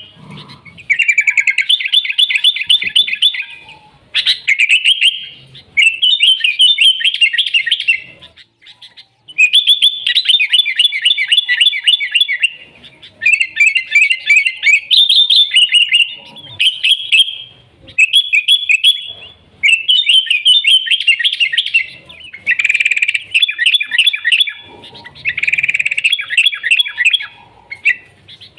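Sooty-headed bulbul (kutilang) in full, vigorous song: a run of fast, chattering phrases of high, rapidly repeated notes. Each phrase lasts a second or two, with short pauses between them.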